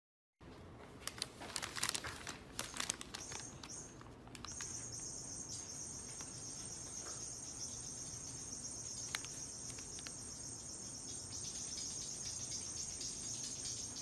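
Crackling rustles of a paper bag worn over a cat's head for the first few seconds. Then a steady, high-pitched insect drone sets in and holds.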